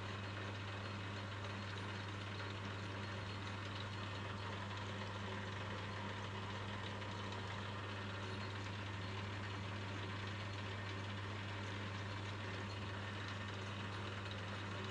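Metal lathe running steadily with the part spinning in a collet, a constant motor hum with a whirring haze above it. The part is being spun to check that it runs true.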